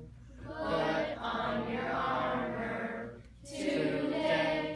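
A group of children singing together in unison, the closing line of a school song. There are two sung phrases with a short breath between them about three seconds in.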